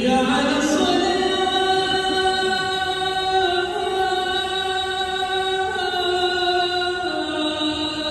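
Adhan, the Islamic call to prayer: a single man's voice chanting long, drawn-out notes, shifting to a new pitch every few seconds.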